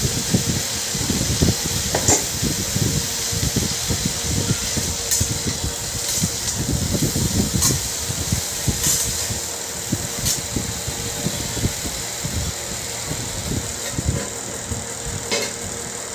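Onions and tomatoes frying in a kadhai on a gas stove: a steady low rumble with faint sizzle, broken by several sharp clicks of a metal spatula against the pan, and a clink as a steel lid goes on near the end.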